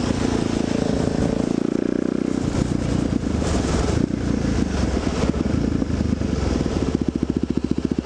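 Suzuki DR-Z trail bike's single-cylinder four-stroke engine running under way, heard from on the bike, over a steady hiss of tyres on the wet road. Near the end the engine settles into a fast, even thumping beat.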